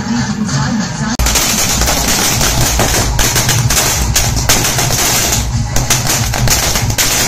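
A string of firecrackers going off on the ground, starting about a second in: a fast, unbroken crackle of bangs.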